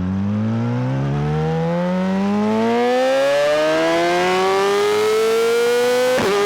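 Yamaha YZF-R6 inline-four sport-bike engine at full throttle, its pitch climbing steadily through the revs in one gear for about six seconds. Near the end an upshift briefly cuts the sound and drops the pitch, and it starts climbing again.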